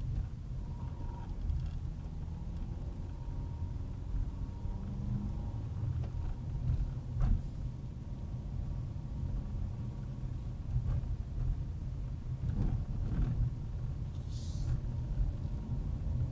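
A car driving: a steady low rumble of engine and road noise, with a few short knocks and a brief hiss near the end.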